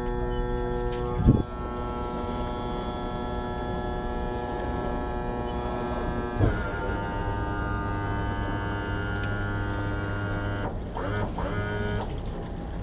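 Johnson 200 hp V6 two-stroke outboard idling with a steady even hum. A heavy clunk comes about a second in as the remote shift lever is worked, and a smaller clunk comes about six seconds in, after which the pitch rises slightly. The pitch wavers briefly near the end.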